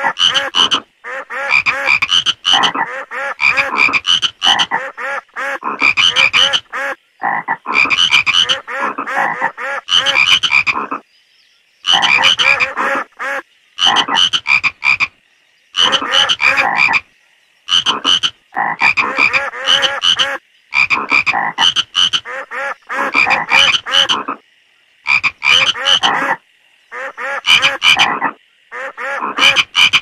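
Frogs croaking in runs of rapid, repeated croaks, broken every few seconds by short pauses.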